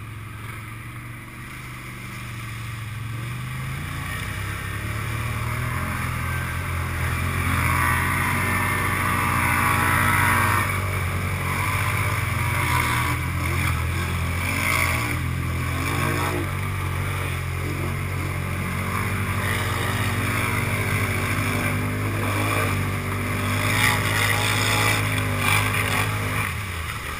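Can-Am ATV engine running under throttle while wading through a muddy pond, its note revving up and down, with muddy water churning and splashing around the machine. The engine gets louder over the first several seconds.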